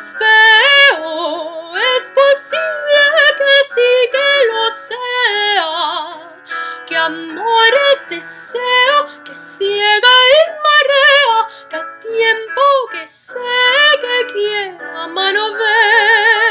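A girl singing a slow melody solo, with a wide vibrato on held notes, the longest one near the end.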